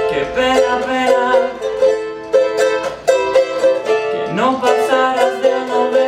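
Ukulele picked in a quick, repeating melodic figure.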